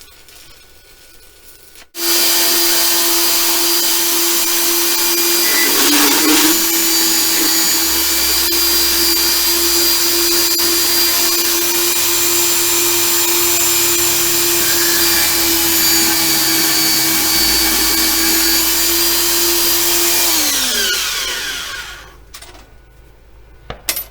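Electric angle grinder starting abruptly and running at a steady high whine while grinding metal. Its pitch dips briefly as the disc bites, about four seconds after it starts. It is switched off and winds down with a falling pitch, followed by a short knock near the end.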